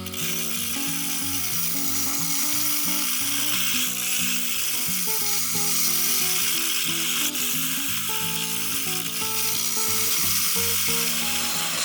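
Background music with a simple melody over a steady hiss of wood being worked on a spinning wood lathe, a Yamato Seisakusho Mokkō Cool 600D-II.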